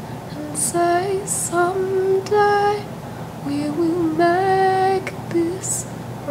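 A woman singing, holding notes and sliding between pitches in short phrases with brief pauses between them.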